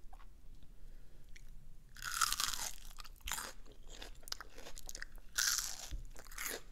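Biting and chewing a crunchy battered onion ring close to the microphone. After a quiet start there is a loud crunch about two seconds in, then several more crunches as it is chewed.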